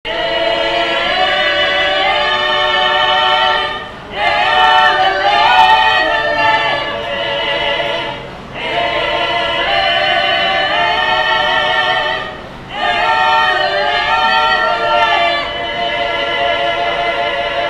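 Mixed choir of men's and women's voices singing a cappella in sustained chords, in phrases about four seconds long with a brief breath between each.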